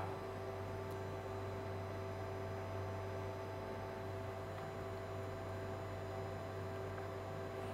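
Steady electrical mains hum with a few faint, unchanging higher tones over it: room tone with nothing else happening.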